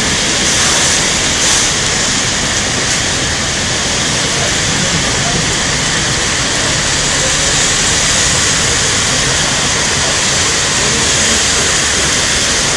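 Heavy rain pouring down steadily, splashing on a wet, paved street.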